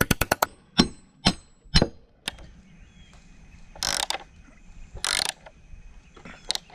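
Ratchet wrench clicking fast while tightening a through bolt, stopping about half a second in, then a few single clicks a half-second apart. Two short rushing noises follow later.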